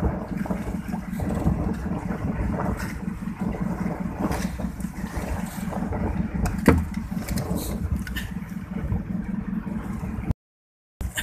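Fishing boat's engine running steadily with a low rumble, with a sharp knock on the deck about two-thirds of the way through. The sound cuts out for about half a second near the end.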